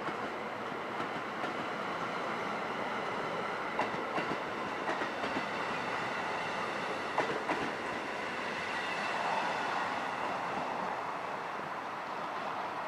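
NJ Transit double-deck passenger coaches rolling past at close range: a steady rumble of wheels on rail, with a few sharp clicks of wheels crossing rail joints about four and seven seconds in.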